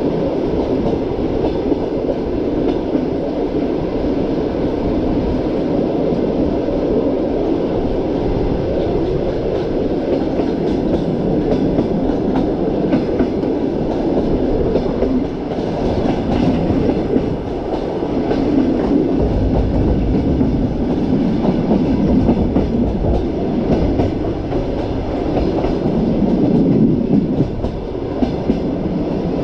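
Train running on the rails, a steady loud rumble with wheels clacking over the rail joints.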